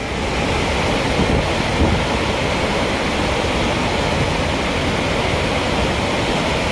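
Floodwater rushing out through a dam's open spillway gates and churning downstream: a steady, loud wash of water noise.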